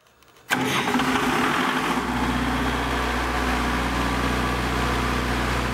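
Diesel generator engine running steadily, cutting in abruptly about half a second in, with a deep even hum.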